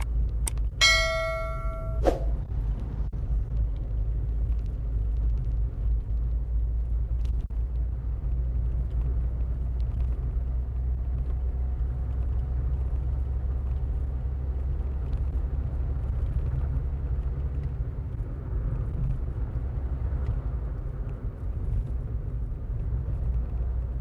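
Steady low road and engine rumble inside a moving car. About a second in, a short bell-like ding ends in a click: the sound effect of an animated subscribe-and-notification-bell button.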